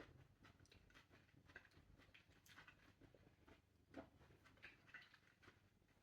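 Near silence with faint, scattered mouth clicks and soft chewing of fresh spring rolls; one click about four seconds in is a little louder.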